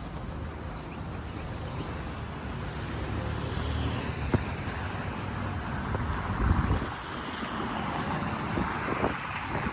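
Street ambience with a car going past: tyre and engine noise builds over several seconds and then fades, over low wind rumble on the microphone. There is a sharp click a little before halfway.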